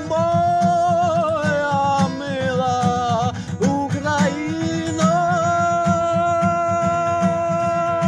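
Acoustic guitar strummed in a steady rhythm under a singer's long held notes with vibrato. The voice slides down through a phrase, breaks off briefly about three and a half seconds in, then holds one note for most of the last three seconds.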